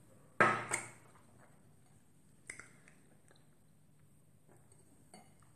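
A person sipping: a short slurp-and-swallow about half a second in, a fainter one at about two and a half seconds, and faint small mouth clicks near the end.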